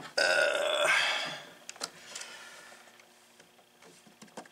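Plastic zip tie being pulled through its ratchet lock: a buzzing zip lasting about a second, followed by faint clicks of handling.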